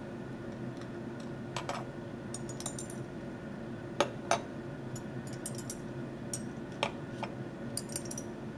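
Glass stirring rods clinking against glass test tubes and tapping down on the bench: a scattering of light clinks and clicks, the loudest two about four seconds in, over a steady low hum.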